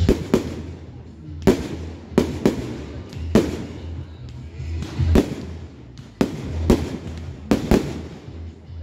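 Fireworks display: aerial shells bursting with sharp bangs, about a dozen at irregular intervals, some in quick pairs.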